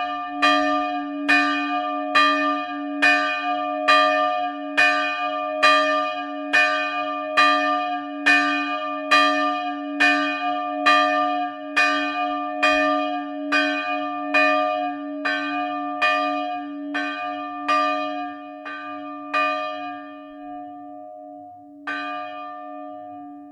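The larger church bell, 160 kg, with a struck note of D-sharp/E-flat, swinging and ringing on its own, its clapper striking about twice a second. The strikes grow weaker and stop about twenty seconds in as the bell is rung down, with one last faint strike near the end, and the bell's tones hang on and fade.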